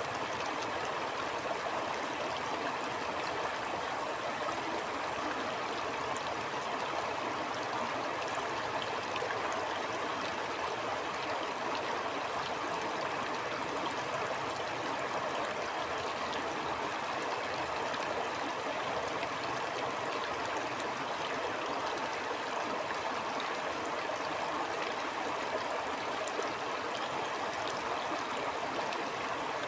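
A stream flowing steadily, an even, unbroken rush of running water.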